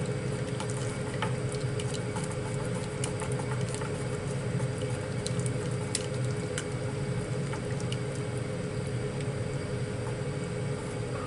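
Chopsticks stirring thick curry in a stainless steel saucepan to dissolve the roux, with faint scattered clicks of the sticks against the pot over a steady low hum.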